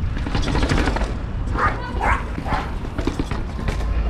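Mountain bike rattling and clicking rapidly over rough ground, with wind rumbling on the microphone. A few short cries come through around the middle.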